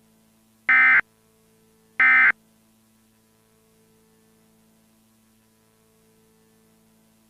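Emergency Alert System end-of-message signal: two short, loud bursts of shrill SAME digital data tones about a second apart, marking the end of the tornado warning. They are followed by a faint steady hum.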